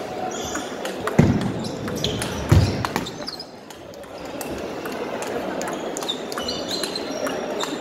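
Table tennis ball clicking back and forth off paddles and table during a rally, with two heavier thumps early on.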